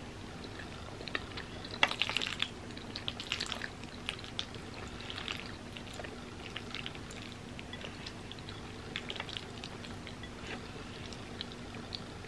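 Close-miked wet mouth sounds of chewing creamy pasta: sticky smacks and small clicks, busiest about two to four seconds in, then scattered.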